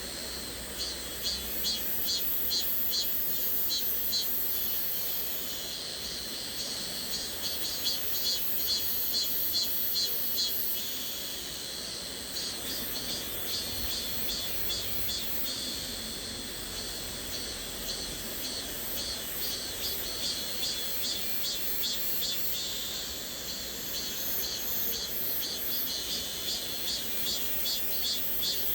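High-pitched cicada chirring in rapid pulses, about four a second, swelling and easing in waves every few seconds, over the steady rush of a flowing stream.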